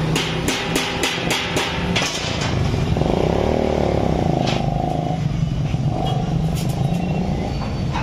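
Three-roll plate bending machine running: its electric motor and gear train hum steadily as a thin steel sheet is fed through the rolls and curved, starting about two seconds in, with a whine that rises and falls in the middle. Before that, a quick regular ticking, about three a second.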